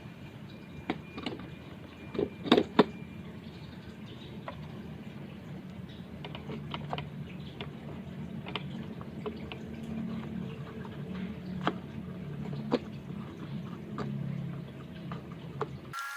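Scattered light taps and clicks of small objects being handled, with a few louder knocks about two and a half seconds in, over a faint low hum.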